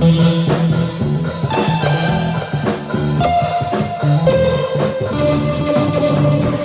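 Rock band improvising live: electric guitar holding sustained notes over bass guitar and drum kit.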